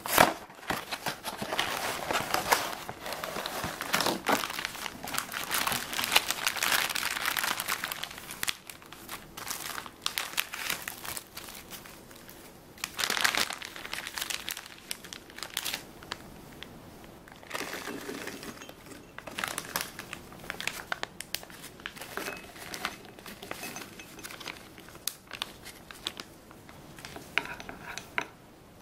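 Plastic packaging crinkling as hands handle thin plastic bags of chocolate chips. It is densest in the first several seconds, then comes in shorter scattered bursts.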